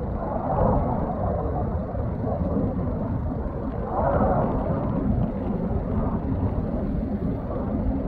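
Fighter jet flying overhead: a steady, low jet-engine rumble that swells briefly about halfway through.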